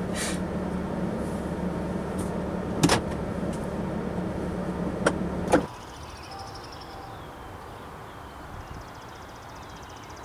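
A steady low hum with a few sharp clicks, which cuts off abruptly a little over halfway through. What follows is a much quieter background with a few faint high chirps.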